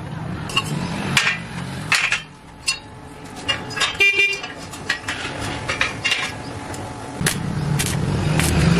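Steel square tubes knocking and clinking as pieces of a trolley frame are handled and set in place, with a short vehicle horn toot about four seconds in. Near the end a stick-welding arc is struck on the frame.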